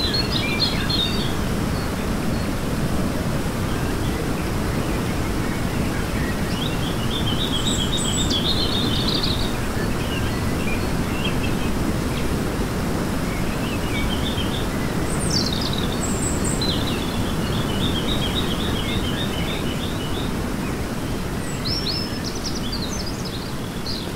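Songbirds singing short trilled phrases of rapidly repeated notes every several seconds, with a few sharp higher calls, over a steady low rushing noise.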